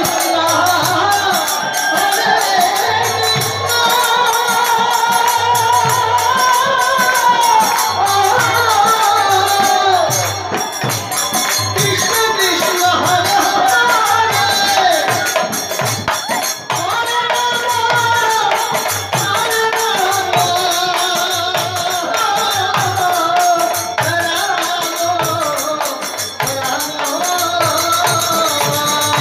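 Bengali harinam kirtan music: a group singing a devotional song over a steady beat of khol and dhol drums, with bamboo flute and metal jingling from hand cymbals.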